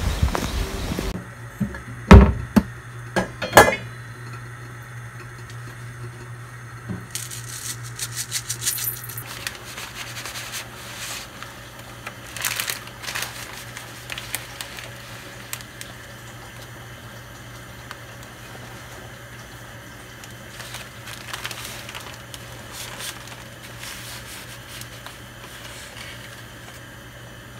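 Kitchen handling sounds at a gas stove: a few sharp clanks of a glass cooking pot and utensils, then scattered lighter clinks and rustles as dry noodles are slid from their plastic pack into the pot. A steady low hum runs underneath.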